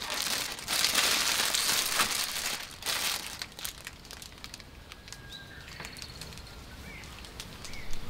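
Thin plastic bag crinkling loudly as it is pulled back off a loaf of shokupan for about three seconds, then quieter as a kitchen knife saws softly through the loaf. Small birds chirp a few times in the second half.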